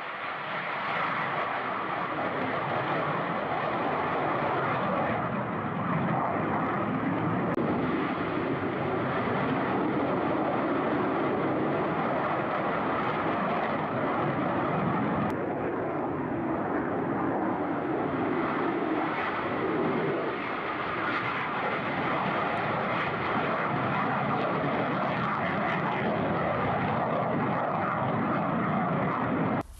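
Military jet aircraft taking off: a loud, continuous jet-engine rumble that builds over the first couple of seconds and then holds steady.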